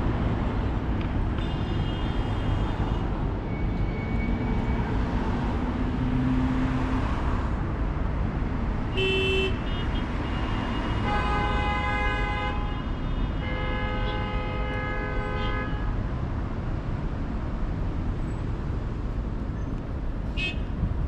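Steady road-traffic noise with car horns honking: a faint horn early, a short toot about nine seconds in, then two longer horn blasts a few seconds after it.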